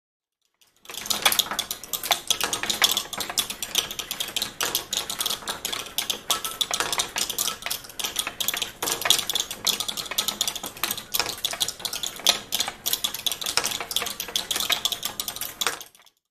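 Metal balls rolling down an inclined wooden board set with rows of screws, clicking against the screw heads in a dense, continuous metallic clatter. It starts about a second in and cuts off abruptly just before the end.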